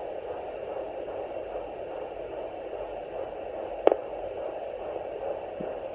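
Fetal Doppler's steady static-like hiss, with one sharp thump about four seconds in: a fetal hiccup picked up by the probe.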